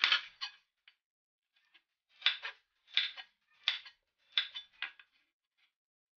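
Chef's knife slicing through green chili peppers onto a plastic cutting board: a couple of cuts at the start, then a steady run of about five knife strikes from about two seconds in, roughly one and a half a second.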